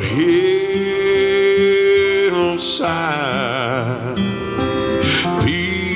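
A man singing a slow gospel song, holding long drawn-out notes, one with a marked vibrato in the middle.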